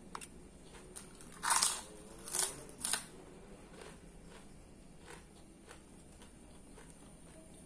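A crisp kerupuk cracker bitten and crunched in the mouth: three loud crunches, about one and a half, two and a half and three seconds in, then quieter chewing clicks.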